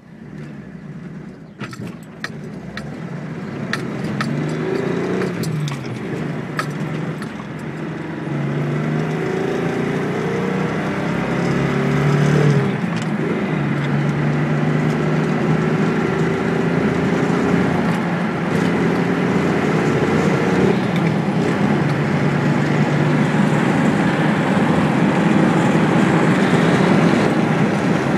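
Datsun 280Z inline-six engine running, its pitch rising and falling as it is revved or driven, growing louder over the first few seconds. A run of sharp clicks comes over the first several seconds: the clicking noise the owner is recording.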